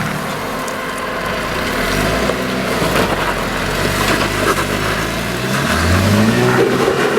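Four-wheel-drive vehicle's engine working under load off-road, with the revs rising about six seconds in.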